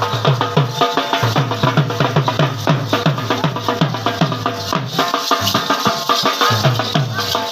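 Background music driven by a fast, steady drum beat, about four strokes a second, with percussion and sustained melody notes over it.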